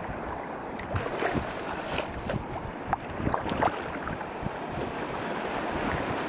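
Water splashing and lapping against a boat hull, with many short sharp splashes over a steady wash and wind buffeting the microphone.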